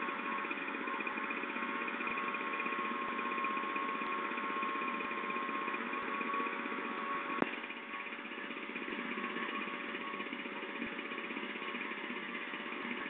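Small engine of a motorized knapsack sprayer running steadily at one constant speed, with a single sharp click about seven seconds in.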